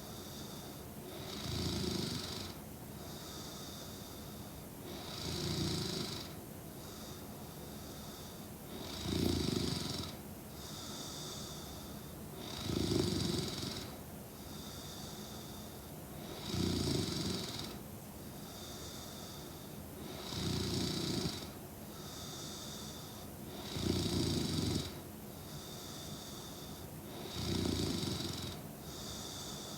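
A young woman snoring in her sleep, with a loud snore on every breath about every four seconds, eight in all, and a quieter breath between each snore.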